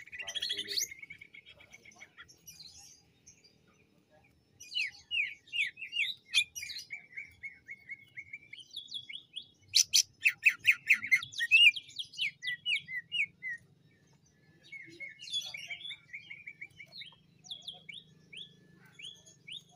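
Male cucak ijo (green leafbird) singing in phrases of rapid chirps and trills with short pauses between them. A held whistle just before ten seconds in leads into the loudest, densest burst of stuttering notes.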